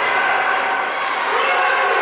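Crowd of spectators, a steady din of many voices talking and shouting at once.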